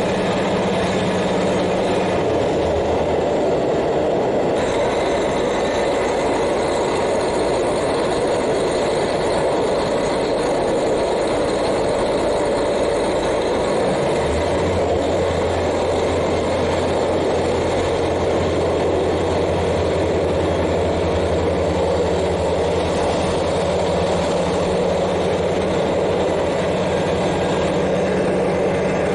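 KiHa 40 diesel railcar's N-DMF13HZI engine running under the floor, heard from directly above it, together with the railcar's running noise on the rails. The low engine tone shifts a few times, about 2 s, 14 s and 18 s in.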